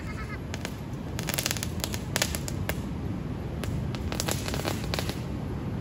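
Firecrackers crackling in quick strings of sharp pops, in bursts about a second in, around two seconds in, and again from about three and a half to five seconds in.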